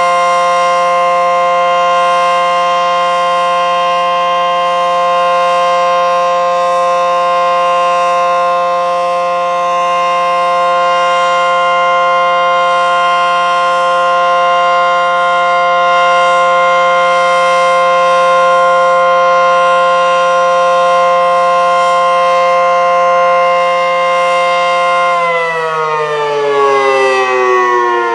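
ACA Screamer S-10 tornado warning siren sounding a steady, loud alert tone during a test, then winding down with a falling pitch for the last few seconds.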